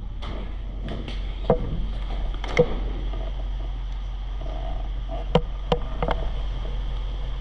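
Scattered sharp cracks of airsoft gunfire, about eight irregular shots, the loudest about a second and a half, two and a half, and five and a half seconds in. A steady low rumble, like wind on the microphone, runs underneath.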